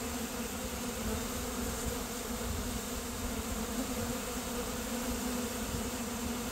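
A swarm of honey bees buzzing in a steady, unbroken hum as they cluster on and fly around a hive box.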